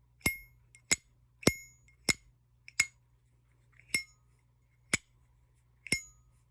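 Zippo lighter lid being flicked open and snapped shut over and over: about eight sharp metallic clacks, most carrying a short, high ringing ping.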